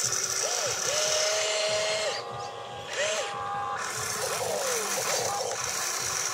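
Small electric motors of a radio-controlled excavator whining as the boom lifts and the arm swings the bucket. The whine starts and stops several times, its pitch rising at each start and falling at each stop.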